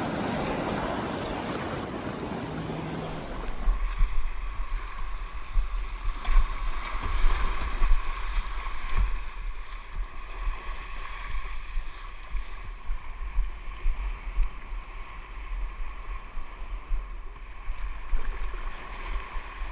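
Sea water rushing around a kayak for the first few seconds, then irregular splashing of paddle and hull on the sea with a gusty low rumble of wind on the microphone.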